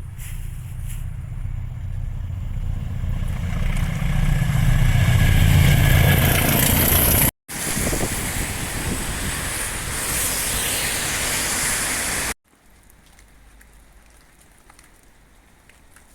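A train passing close by: a low rumble with a high rushing noise, building steadily for about seven seconds, then stopping abruptly. A second stretch of loud train noise follows and also cuts off suddenly, leaving quiet background.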